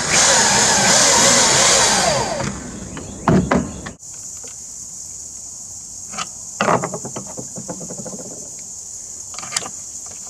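Power drill driving a screw into a wooden deck board, its motor whirring with a wavering pitch as it loads up, for about two and a half seconds. Later, scattered light clicks and scrapes as a steel eye screw is turned into the wood by hand with a screwdriver through its eye.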